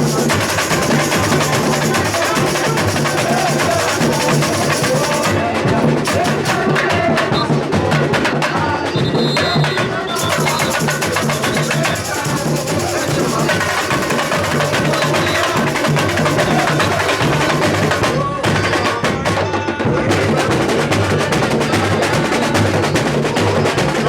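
Samba school bateria (percussion ensemble) playing a loud, continuous samba rhythm on drums and small percussion. The high, hissing layer drops out twice, about five seconds in for several seconds and again for a moment near the three-quarter mark, while the drums keep going.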